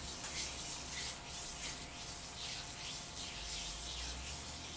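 Hands rubbing a salt scrub over another person's skin: a soft, scratchy swishing that rises and falls with each repeated stroke of the massage.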